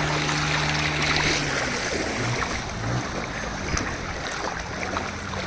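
Motorbike wading through floodwater: water rushes and swishes around it while the engine hums steadily, its note dropping away about one and a half seconds in.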